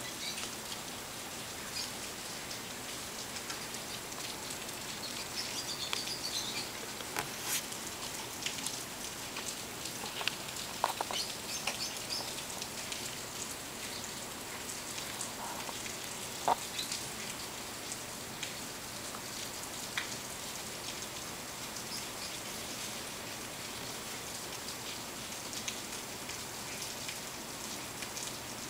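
Steady background hiss with scattered faint clicks and taps from fingers handling a small handheld TV, most of them in the first half.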